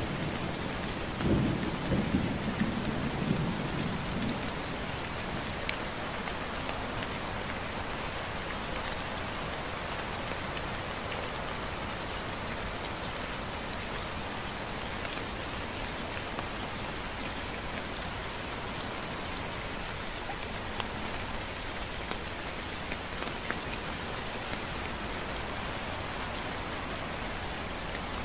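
Steady gentle rain falling, with scattered drop ticks. A low roll of thunder runs through the first few seconds, swelling about a second in and dying away by about four seconds.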